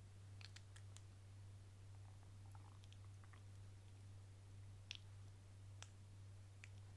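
Near silence: a steady low hum with faint, sharp clicks scattered through it, the clearest about five seconds in.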